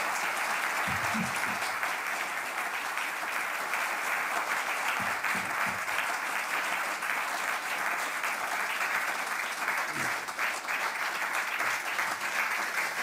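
An audience applauding: steady, dense clapping from many hands in a large hall.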